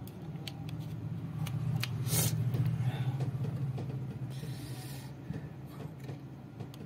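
Faint clicks and rustles from the plastic casing and parts of a Nokia keypad phone being handled, over a steady low hum that swells and fades.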